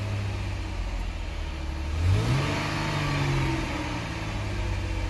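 2007 Chrysler 300 engine running at idle, revved once about two seconds in and settling back to idle. It runs perfectly now that the faulty fuel pump relay, which caused the crank-no-start, has been replaced with the horn relay.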